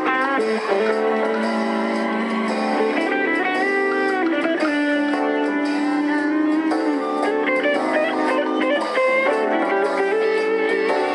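Live band music led by an electric guitar line of held and bending notes, sounding thin, with no deep bass.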